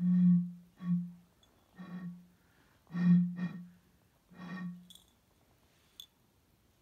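Glass bottle being blown across its mouth, giving about six short hollow hoots at one steady low pitch over five seconds, the first and fourth loudest.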